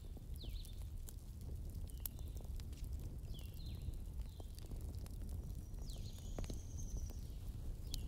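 Wood fire burning in a fireplace: a steady low rumble of flames with scattered crackles and pops, and a few short, faint high-pitched squeaks or whistles.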